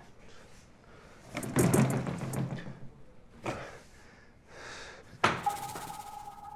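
Thuds and knocks at a door and wall. The loudest is a sharp hit about five seconds in, followed by a ringing tone that lasts over a second.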